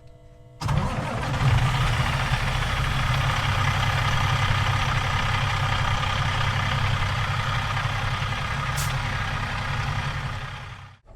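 Semi truck's diesel engine running steadily, with road and wind noise; a brief high hiss about nine seconds in.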